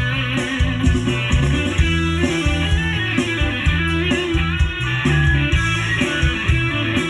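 A song with a plucked electric guitar lead over a steady bass beat, played through loudspeakers that are being tested.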